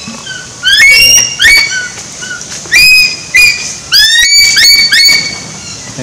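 Captive eagles calling: a rapid series of short, shrill whistled calls, each sweeping upward in pitch, coming in clusters about a second in, around three seconds in, and again from about four seconds on.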